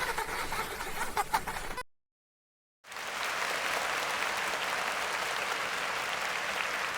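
Steady applause, cut off by about a second of dead silence roughly two seconds in, then resuming as an even clapping hiss.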